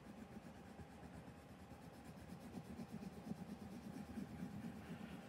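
Red colored pencil shading on copy paper: faint, continuous scratching of repeated pencil strokes.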